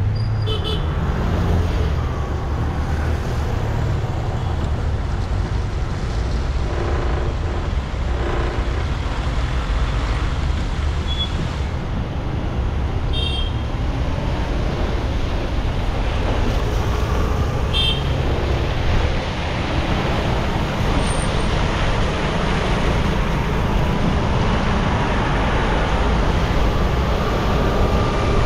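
Road noise from a car driving on a wet highway: a steady low rumble with tyre hiss. Three brief high-pitched toots stand out, one about a second in, one near the middle and one a few seconds later.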